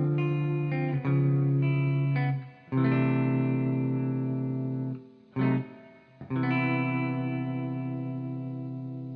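Background music: electric guitar with effects playing slow, struck chords that each ring out and fade, with short breaks between them. The last chord, about six seconds in, is held and slowly dies away with a wavering shimmer.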